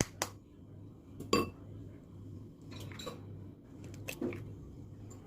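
Scattered clinks and taps of small hard objects being handled, the loudest with a brief ring about a second and a half in, over a low steady hum.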